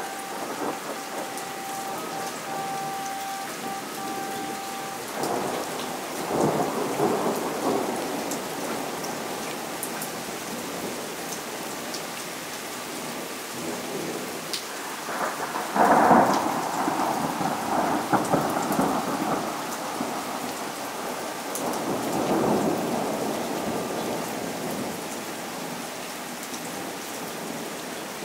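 Heavy rain falling steadily during a thunderstorm, with thunder rumbling three times: about six seconds in, a louder peal about halfway through that rumbles on for several seconds, and another a few seconds later.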